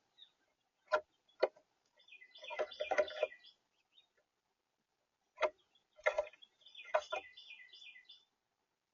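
Small birds at a feeder giving short chirping calls in two busy clusters, with several sharp taps and knocks among them.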